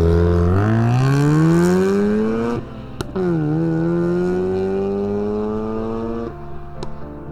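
Modified Mazda RX-8 R3's twin-rotor rotary engine, running without a catalytic converter, accelerating hard with revs climbing steeply. About two and a half seconds in the revs drop at an upshift, followed by a single sharp crack. The engine then pulls up more slowly through the next gear before the revs drop again near the end, with another sharp crack.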